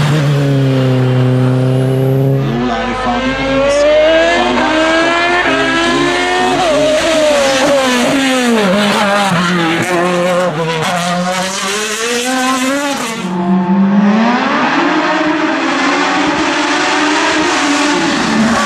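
Race car engine under hard acceleration, its pitch repeatedly climbing and then dropping sharply at gear changes and braking.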